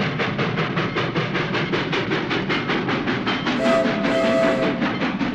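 Train running with a fast, even clickety-clack of wheels over rail joints. Its horn sounds twice a little past halfway, a short blast then a longer one.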